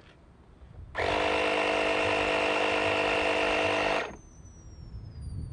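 Portable electric air compressor pumping air into a PVC pressure tank through a tire valve: it runs steadily for about three seconds, then cuts off suddenly.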